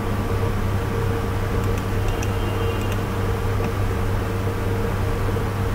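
A steady low hum with background hiss, and a few faint clicks over it.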